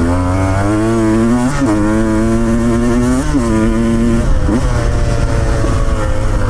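Motorcycle engine running under load on a rough dirt road, its revs climbing slowly and then jumping and dropping sharply about three times before settling to a steadier pitch.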